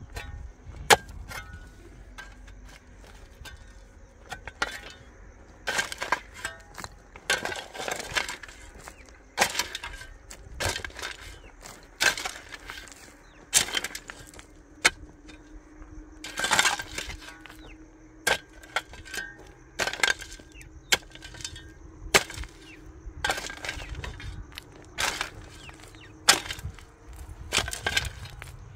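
Hand digging in stony ground: irregular metal tool strikes, about one every second or two, each with a short clink as the blade hits stone, some followed by the scrape of earth being shovelled.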